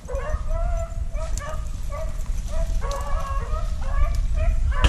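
Beagles baying on a rabbit chase: a steady string of drawn-out, bending howls, one after another, over a low rumble.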